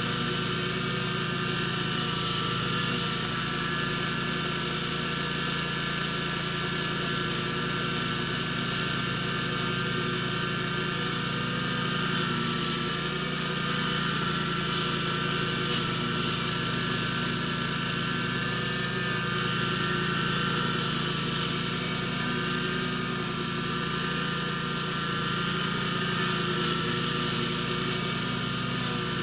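Scag zero-turn mower's engine running steadily at a constant speed.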